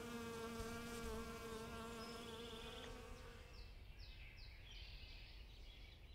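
Faint steady buzz of a bee in flight, fading out about halfway through. A few short, high chirps that fall in pitch follow near the end.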